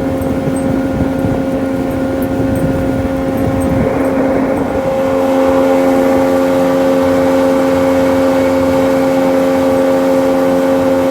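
Boat outboard motor running steadily, its note shifting slightly about five seconds in.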